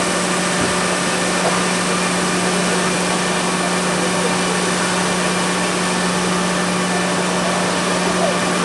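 Steady mechanical drone from a suspended looping roller coaster's ride machinery: a constant low hum under an even wash of noise, with no change in level.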